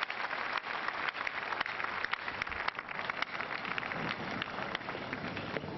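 Congregation applauding: many hands clapping at once in a dense, steady patter.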